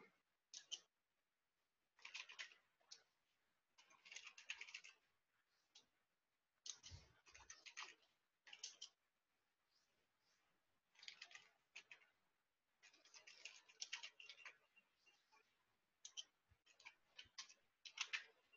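Faint computer keyboard typing: short bursts of keystrokes separated by pauses of a second or two.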